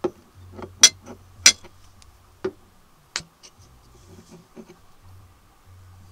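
A metal spoon clinking and tapping against a ceramic plate: a run of sharp clicks over the first three seconds or so, two of them much louder than the rest, then a few softer clicks and rustles.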